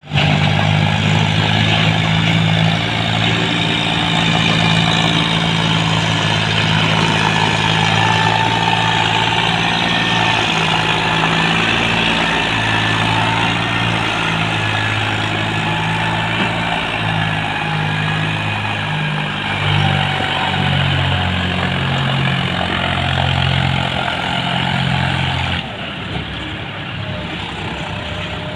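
Diesel farm tractor engines running steadily as tractors pull heavily loaded sugarcane trailers. The sound drops suddenly in level near the end.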